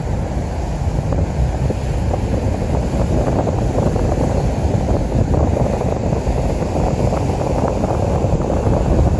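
Distant rumble of an Atlas V rocket in flight, heard from miles away, low and steady with scattered crackles, mixed with wind buffeting the microphone.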